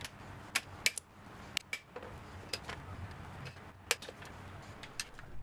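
Irregular sharp metal clinks and taps of hand tools and engine parts being handled during engine disassembly, eight or nine over a few seconds, over a low background hum.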